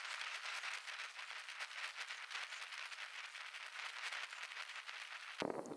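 Oxy-fuel torch flame hissing with a fine, steady crackle as it heats the flux-covered crack in a bronze cymbal before silver brazing. It stops abruptly near the end.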